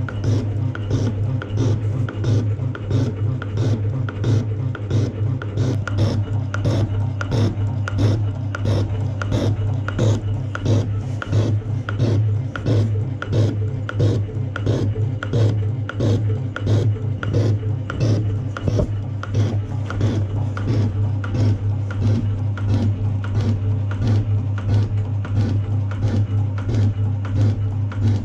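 Metal shaper running with a steady motor hum, its ram stroking back and forth about twice a second as the tool cuts a cast iron block, each stroke giving a short clatter.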